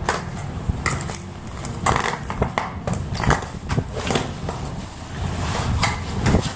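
Strong wind buffeting the microphone with a constant low rumble, broken by irregular crunches and knocks.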